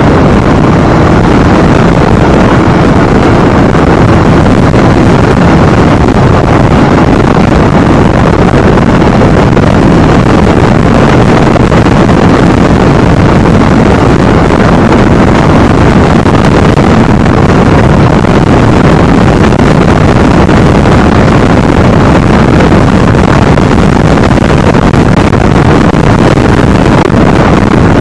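Harley-Davidson motorcycle on the move at steady speed: its engine running under loud, unbroken wind rush on the microphone.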